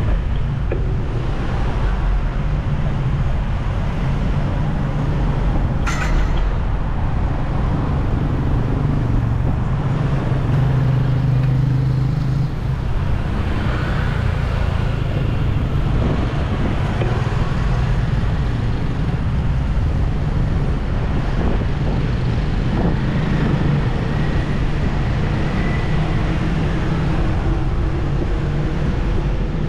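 Steady city road traffic: vehicle engines running and passing, with a continuous low rumble and a single sharp click about six seconds in.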